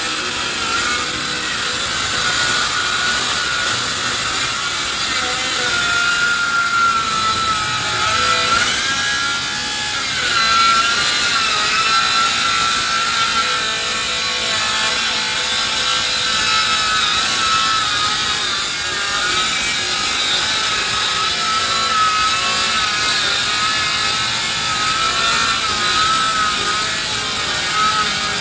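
Dongcheng DCMY-185 cordless brushless 7-inch circular saw ripping along a thick, hard, heavy hardwood board. The motor's whine wavers in pitch as the blade is loaded by the hard wood.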